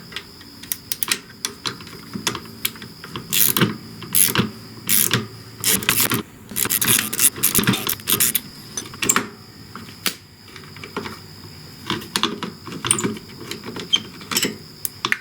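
Metal hand tools clicking and clinking on a motorcycle's shifter linkage as a bolt is worked loose and taken out, in irregular bursts of clicks and rattles.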